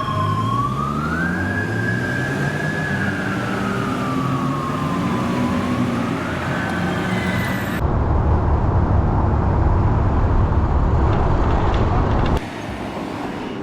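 Police motorcycle siren sweeping slowly up and down, with an engine running underneath. About eight seconds in the siren gives way to a loud low rumble, which cuts off abruptly about twelve seconds in.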